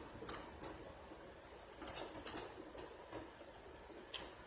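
Scattered light clicks and rattles of metal and plastic server parts being handled and unclipped inside an R710 server chassis, some spaced apart and a quick cluster about two seconds in.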